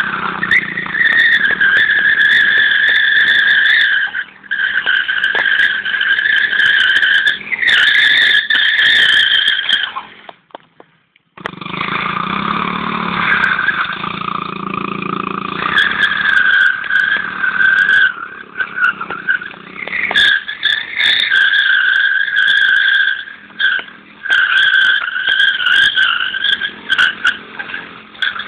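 Small motorcycle doing a burnout: the engine is held at high revs while the spinning rear tyre squeals on the concrete, in long stretches with brief dips. It cuts out to near silence for about a second around ten seconds in.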